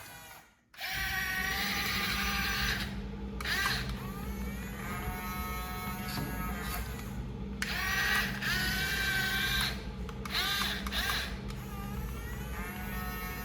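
Small electric motors and gearboxes of a toy RC excavator whirring with a pulsing hum. They stop briefly a few times and start again with a quick swoop in pitch.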